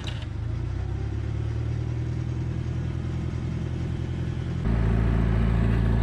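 Propane-fuelled Hyster 60 forklift engine running steadily, on test with its rebuilt lift ram. The engine sound steps up louder about four and a half seconds in.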